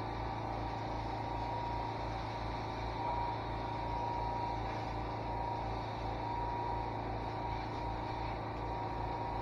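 Pressure washer running steadily while its lance sprays water across block paving, with a low regular pulse of several beats a second under the hiss of the spray.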